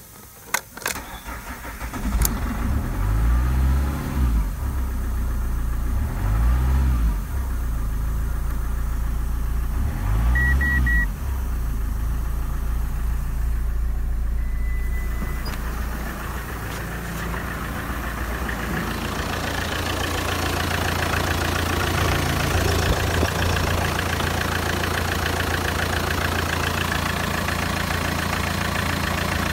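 Fiat Stilo 1.9 JTD four-cylinder turbodiesel starting about two seconds in and revved briefly three times, then idling steadily. The idle grows louder in the last third, heard close up under the bonnet.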